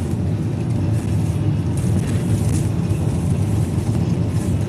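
Steady low rumble of a moving vehicle, an even drone without distinct events.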